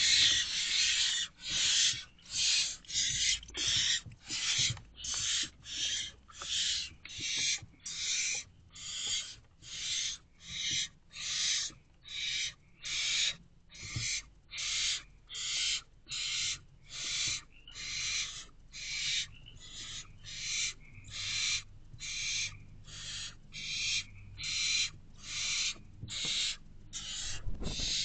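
Barn owlets begging for food: a steady run of rasping hiss calls, about three every two seconds, with the first call longer and louder than the rest.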